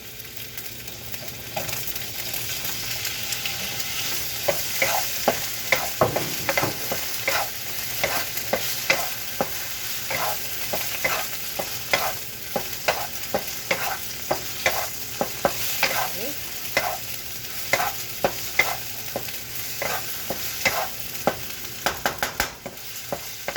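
Pineapple pieces frying in hot oil with garlic and ginger: a steady sizzle, while a spatula stirs and repeatedly clicks and scrapes against the pan.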